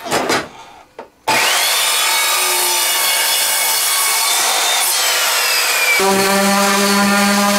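Compound mitre saw starting about a second in and cutting through a pallet-wood board, its motor whine falling away as the blade winds down. Near the end an electric hand sander runs with a steady hum.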